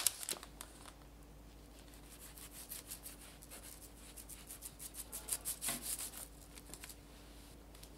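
A knife sawing through the edge of a soft matcha sponge cake on baking paper: faint scraping, growing into a quick run of strokes from about four to six and a half seconds in. A brief rustle of baking paper comes right at the start.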